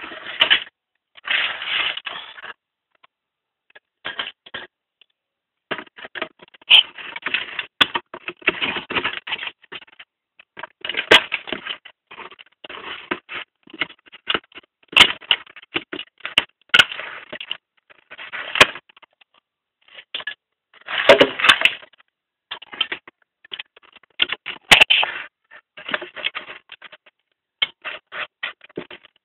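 Irregular clicking and rattling in bursts with short pauses, with a few sharp single clicks, as of hard parts and tools being handled while a spin dryer is worked on.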